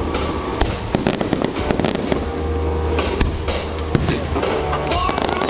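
Aerial fireworks display: a dense run of bangs, pops and crackles in quick succession over a continuous low rumble.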